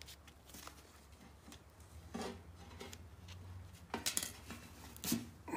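A razor blade cutting and scraping insulation off a power-cord wire: faint clicks and scrapes, a few brief sharp ones about two, four and five seconds in.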